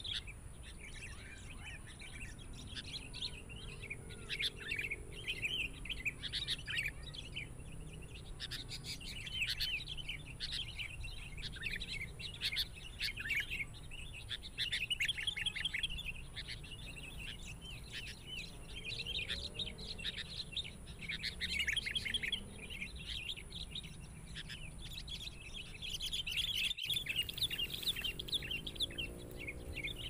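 Sooty-headed bulbul (kutilang) calls: quick runs of short, bright chirping notes, almost continuous, busiest near the end. A steady thin high-pitched tone runs underneath.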